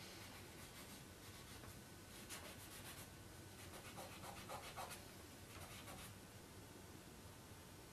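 Faint scratching of a drawing pencil on paper, in a few short runs of quick strokes.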